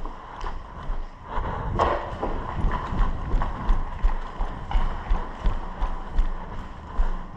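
Footsteps of an airsoft player moving at a quick walk over a hard floor, about two to three steps a second, with a louder knock or scrape about two seconds in.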